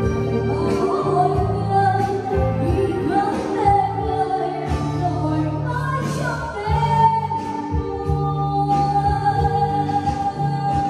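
Music with a singing voice over a steady beat and sustained bass line.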